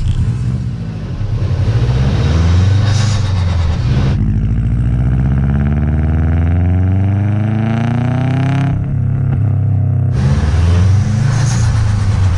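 Subaru WRX STI's turbocharged flat-four engine and exhaust under acceleration. Its pitch climbs steadily for about four seconds in the middle, with louder, rougher passages before and after.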